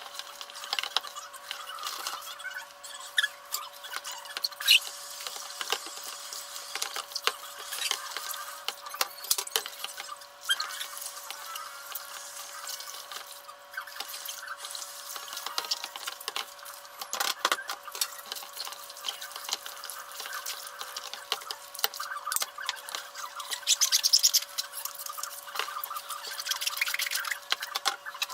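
Hand washing-up sped up nearly six times: a fast, dense clatter of crockery and cutlery knocking together, with water splashing in the sink.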